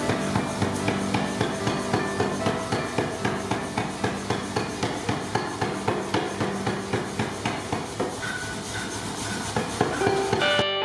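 Power hammer striking a red-hot 50 mm solid iron bar in a fast, even run of blows, about three a second, drawing the bar down. The blows grow fainter in the last few seconds.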